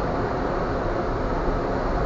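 Steady rushing rumble of a cruise ship under way at sea, heard from its stern: the churning wake and wind blend into an even noise with a deep low rumble and no separate events.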